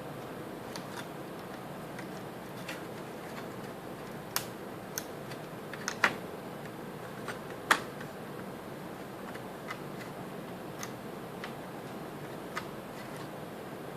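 Scattered light clicks and taps of a laptop's plastic parts being handled and pressed together during reassembly, over a steady hiss. Two louder snaps come about six and eight seconds in.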